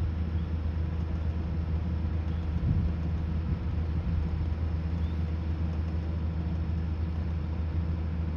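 A steady low rumble with a faint constant hum running through it.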